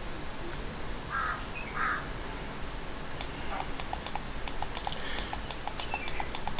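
Rapid, evenly spaced clicking, about six ticks a second from about three seconds in, from a computer mouse's scroll wheel scrolling through a document. A second or so in there are two short harsh sounds.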